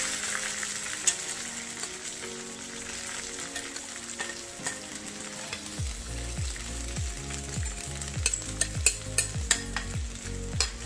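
Hot oil with tempered mustard seeds, fennel and green chilli sizzling steadily in a stainless-steel kadai as washed poha (flattened rice) is tipped in from a bowl. A spoon scrapes the poha out of the bowl, and sharp clicks of the spoon knocking on the bowl and pan come more often in the second half.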